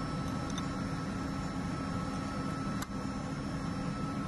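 Steady drone of running machinery in a ship's engine room, a low hum with a thin steady whine on top. A single short click comes about three seconds in.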